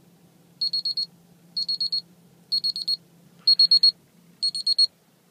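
Vicks Digital Plus digital thermometer beeping its reading-done signal: a high-pitched electronic beep in quick groups of about four, repeating roughly once a second.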